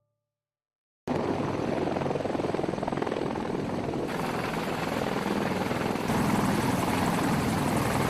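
Military helicopter running, a dense steady rotor chop with engine noise that cuts in abruptly about a second in after silence and grows a little louder about two-thirds of the way through.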